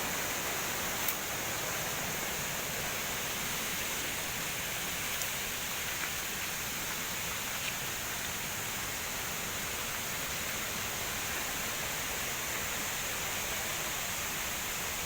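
Waterfall rushing in a steady, even roar of falling water, with a few faint clicks.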